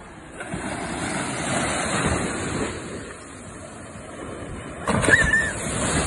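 Sea waves surging and washing in over shallow sand, then about five seconds in a wave breaks with a splash around a child, who lets out a short high-pitched cry.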